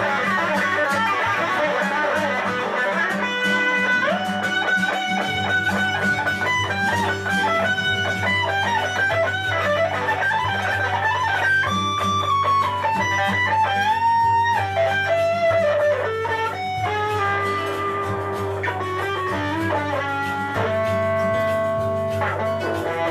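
Improvised guitar solo in the Lydian mode: single-note melodic lines, some bent in pitch, over a steady low backing note that comes in about five seconds in.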